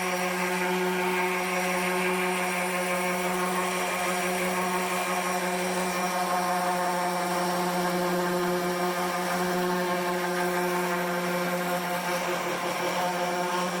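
Table-mounted router with a round-over bit running at a steady pitch while the edges of a cedar cutting board are rounded over.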